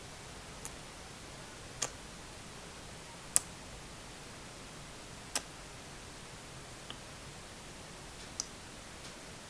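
Six short, sharp clicks at irregular intervals over a steady low hiss; the loudest comes about three and a half seconds in.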